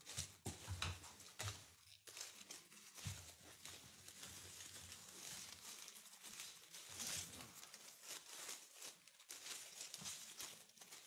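Fresh ivy stems and leaves rustling and crinkling as they are bent and woven into a wreath ring: faint, with many small crackles.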